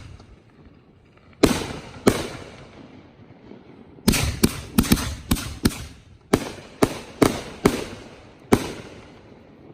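Professional aerial fireworks going off: a series of sharp bangs, each trailing off in a rolling echo. Two come about a second and a half in, then a rapid run of about a dozen more follows from around four seconds in.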